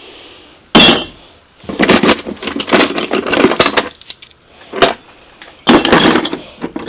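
Loose metal hand tools clinking and clattering as they are rummaged through and lifted out of a toolbox, with a sharp clank about a second in and another burst of clatter near the end.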